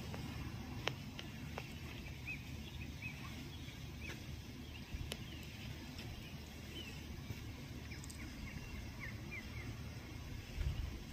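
Outdoor park ambience: a steady low rumble with faint, scattered small-bird chirps, a few sharp clicks and a brief low thump near the end.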